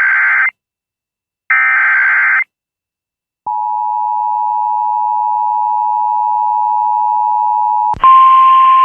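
Emergency Alert System tones: two short, harsh buzzing bursts of the SAME digital header about a second apart, then the two-tone attention signal held steadily for about four and a half seconds. Near the end it switches to a louder single NOAA Weather Radio warning tone over a hiss.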